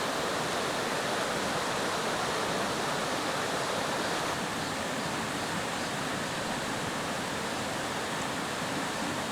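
Mountain stream water rushing steadily over rocks, a constant even roar that drops slightly in level about four seconds in.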